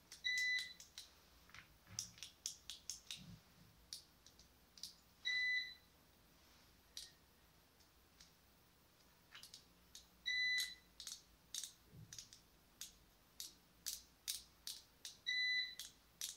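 Short electronic beeps from a digital multimeter, four of them at an even pitch about five seconds apart, among small plastic clicks from a cordless drill trigger switch being handled.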